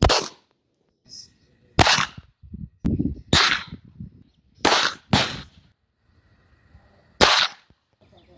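Pistol shots: six sharp reports at uneven intervals, a second or more apart, with two coming close together about five seconds in.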